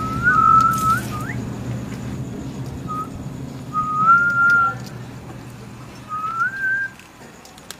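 A person whistling a few short, clear phrases, with gliding notes and a quick upward flick at the end of the first one.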